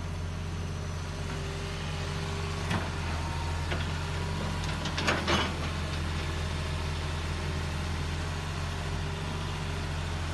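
Heavy excavator diesel engine running steadily under load, with a few sharp knocks, a short cluster of them about halfway through the loudest.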